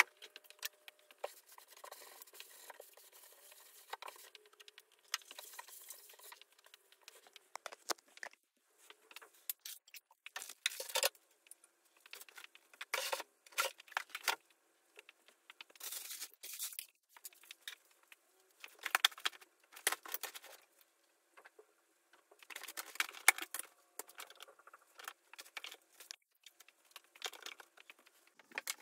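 Intermittent rustling and crinkling from something being handled, in short irregular bursts with quieter rustle between them.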